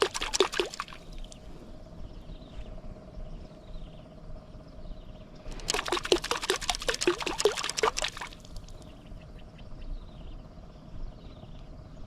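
Water splashing and sloshing in two bursts of a couple of seconds each: one dying away about a second in, the other about halfway through.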